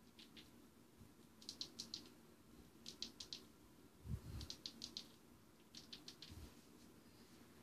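Faint, sharp clicking in quick runs of three or four, repeating every second or so, with a dull low thump about four seconds in and another a little after six seconds; the clicks fit the small push-buttons of LED glove lights being pressed to change their modes.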